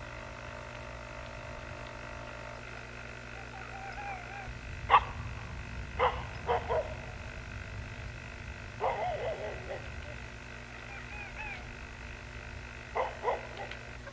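Short, sharp animal calls, a few single ones and some in quick pairs, over a steady electrical hum.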